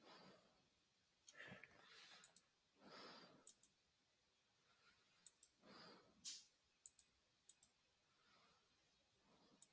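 Faint computer mouse clicks, single and in quick pairs like double-clicks, as text is selected in a document, with soft breathing between them.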